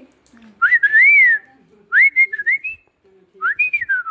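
Whistling: three short whistled phrases, each rising and then sliding down in pitch, about a second apart.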